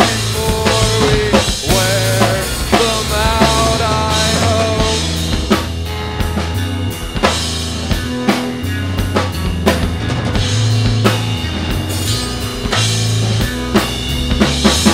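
Live funk-rock band playing: drum kit, electric bass and electric guitar. For the first five seconds or so a wavering, bending lead line rides over the groove; after that it drops away and the drums and bass carry on.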